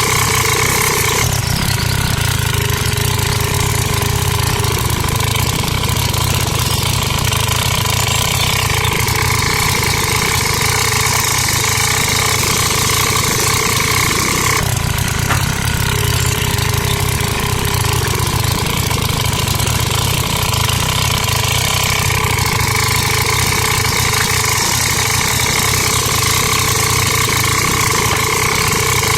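Tractor engine idling steadily, with a steady whine over its low running note; the sound shifts abruptly about a second in and again about halfway through.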